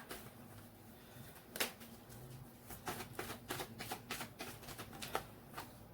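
Tarot cards being shuffled and drawn by hand: a run of soft, irregular card snaps and flicks, the sharpest about one and a half seconds in.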